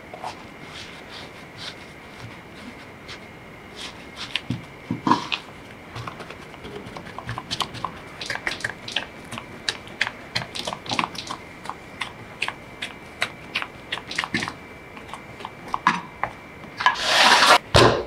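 Silicone spatula stirring and pressing mashed potato and flour into a dough in a bowl: irregular soft scrapes, squishes and sticky clicks. A brief loud rustling noise comes near the end.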